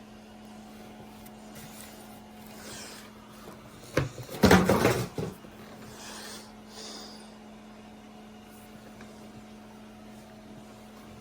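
A short burst of knocks and rustling about four seconds in, with softer scraping sounds before and after, over a steady low hum.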